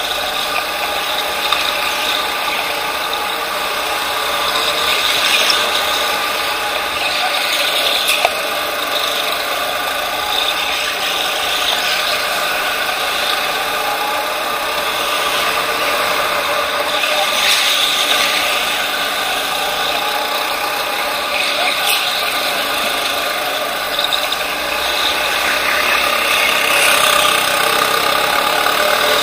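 Racing go-kart driven at speed, heard from a camera mounted on the kart: a steady mechanical whine and rattle from the drivetrain, with a few small clicks.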